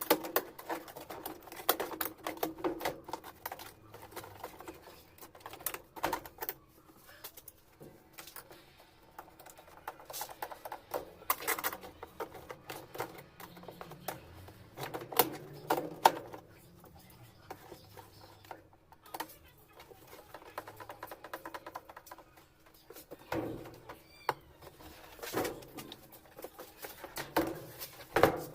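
Irregular clicks, knocks and clatter of metal parts and tools being handled while reassembling a washing machine's mechanism, with a faint steady hum underneath.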